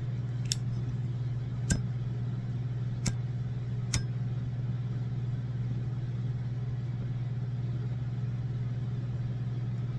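Steady low hum of an idling car engine, with four sharp clicks spread over the first four seconds.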